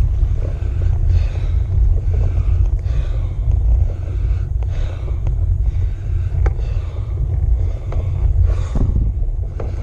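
Wind buffeting the microphone of a handlebar-mounted camera, making a heavy low rumble, with a cyclist's hard breathing about once a second from the effort of a steep climb. A few sharp ticks.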